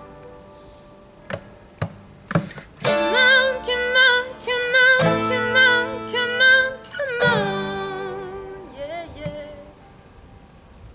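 Closing bars of a song: a few acoustic guitar strums, then long held sung notes with vibrato over the guitar, fading out near the end.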